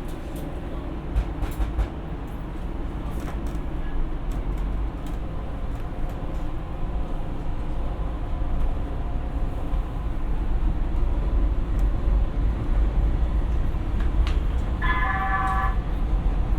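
Siemens P2000 light rail car heard from inside, running and picking up speed: a steady low rumble of wheels and traction motors that grows gradually louder, with a few clicks early on. Near the end a brief electronic tone sounds.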